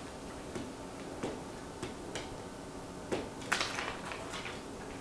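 Quiet handling of paper: a few soft rustles and light taps as a paper cutout is glued with a glue stick and pressed onto poster board, the loudest tap about three and a half seconds in.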